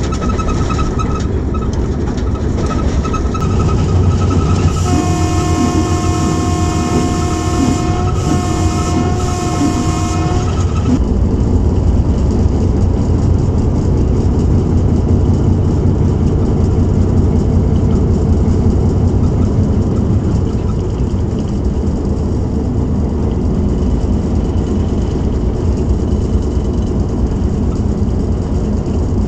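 Hitachi HBU-20 diesel-electric locomotive running, heard from its cab: a steady low engine and wheel rumble, with the locomotive horn sounding about five seconds in, one long blast followed straight away by a shorter one.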